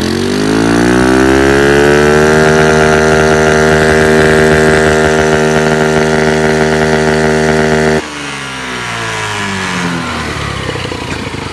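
Honda Activa scooter's single-cylinder four-stroke engine, breathing through an open cone power filter in place of the stock air box, revved up over about two seconds and held at high revs. About eight seconds in the throttle snaps shut and the revs fall back toward idle.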